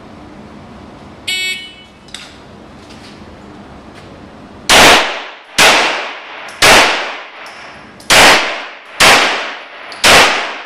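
An electronic shot timer gives one short start beep, then six gunshots follow about a second apart, each ringing on in the indoor range.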